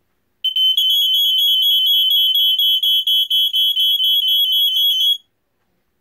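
Two interconnected Fyrnetics Lifesaver 1255 smoke detectors sounding their test alarm together: a loud, shrill, rapidly pulsing tone. The two horns sit at slightly different pitches, one joins a moment after the other and beeps a little faster, and both cut off together after about five seconds.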